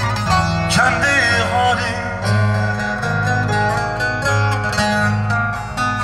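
Instrumental break of a Turkish folk song played live: a bağlama (saz) plucking a quick melody over an electronic keyboard that holds a steady bass line.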